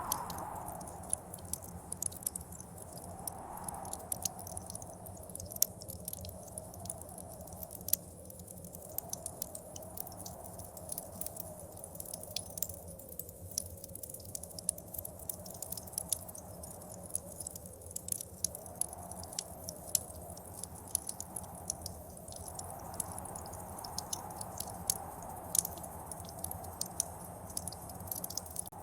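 Wood fire crackling and popping in a fireplace, over blizzard wind whistling that swells and fades every few seconds.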